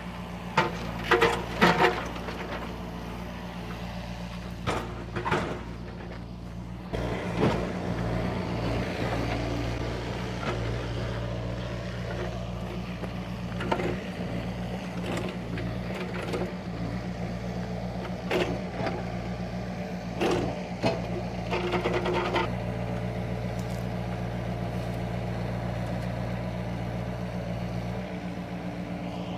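Excavator diesel engine running steadily, with sharp knocks and clanks now and then, loudest in a quick cluster about one to two seconds in.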